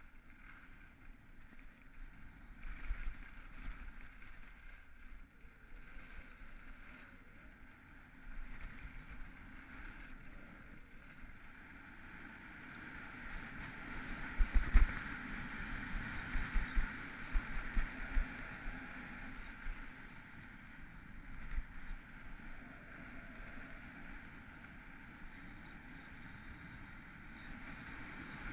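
Skis hissing and scraping over snow on a downhill run, with wind on the microphone. The sound grows louder about halfway through, with several low thumps.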